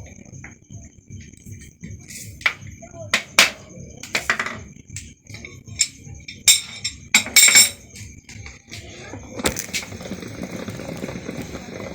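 Metal parts and tools clinking and rattling in a lathe shop, a string of sharp irregular clinks over a faint steady high whine, with a steadier rushing machine noise taking over about three quarters of the way through.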